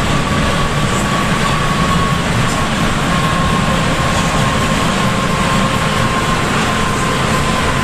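Inside a bus cabin on the move in heavy rain: a steady mix of engine, tyres on the wet road and rain hiss. A thin, steady whine runs over it and sinks slightly in pitch.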